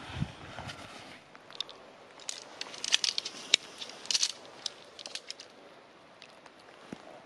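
Crinkly rustling and sharp clicks of a nylon tent pack and its gear being handled, thickest in a burst about two to four seconds in, with a few scattered clicks after.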